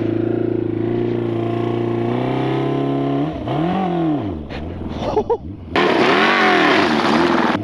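Drift trike's motorcycle engine running at a steady idle, then revved up and down several times from about three seconds in as it moves off onto the ice. For the last two seconds it is louder, with a strong hiss under the revs.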